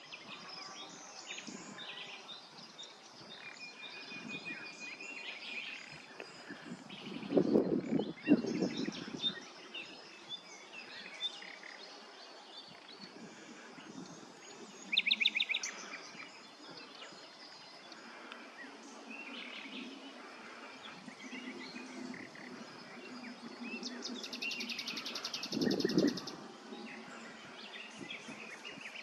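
Several wild songbirds singing and chirping, with a short trill about halfway through and a fast, dense trill near the end. Two bursts of low rumble, one about eight seconds in and one near the end, are the loudest sounds.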